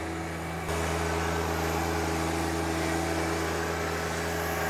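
John Deere 1025R's three-cylinder diesel running steadily as the tractor pulls a disc harrow through the garden soil. It gets louder just under a second in.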